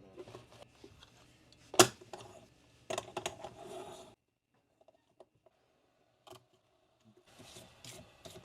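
Clicks and short scrapes of small repair tools working on an iPhone's glass and frame, with one sharp snap about two seconds in. A stretch of near silence falls midway, then the scraping resumes.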